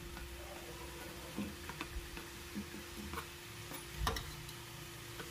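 Hot oil sizzling in a metal kadhai as cut mathri dough pieces are pushed into it off a wooden rolling board with a knife, with scattered light knocks and scrapes of the knife and board, the loudest about four seconds in.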